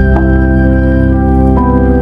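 Background music: slow, sustained organ-like chords, with the notes shifting every second or so.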